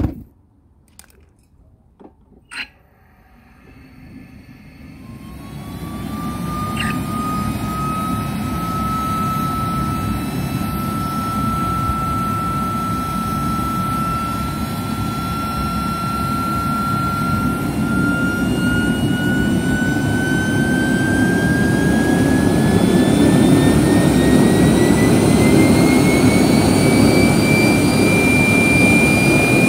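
Homemade turbojet engine starting: a few sharp clicks, then a rushing noise builds and a whine comes in about five seconds in, rising slowly in pitch as the engine spools up. It is the first start after fitting a newly built nozzle guide vane ring.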